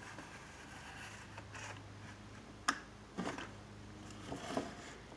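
Small 5–6 RPM synchronous turntable motor running, a faint steady hum, as it slowly turns a PVC prop arm. A sharp click a little under three seconds in and two brief clattering bursts after it come from the arm's loose bolt-and-washer mount and the hand holding the base.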